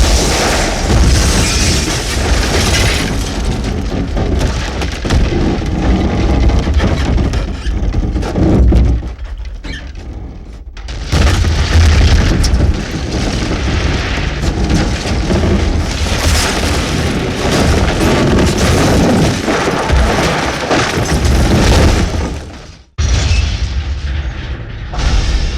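Explosion sound effects: heavy blasts, each followed by a long, loud rumbling roar. A new blast comes in about eleven seconds in, and another after a brief cutoff near the end.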